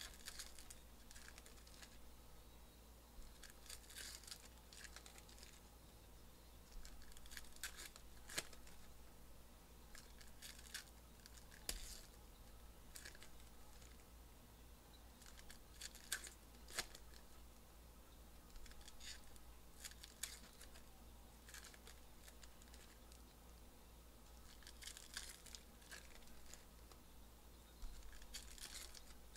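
Foil trading-card packs being torn open and crinkled by hand, faint scattered tearing and rustling with a few sharp clicks.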